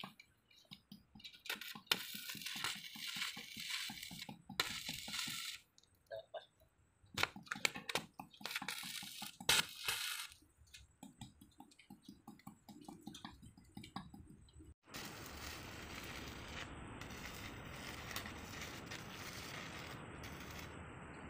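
Electric arc welding on a steel barrier pipe: the arc crackles and sizzles in irregular bursts of a second or two, then after a sudden break about two-thirds in it crackles without stopping.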